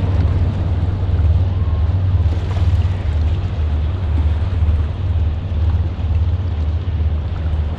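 Wind blowing over the microphone beside a river: a loud, steady low rumble with an even hiss over it.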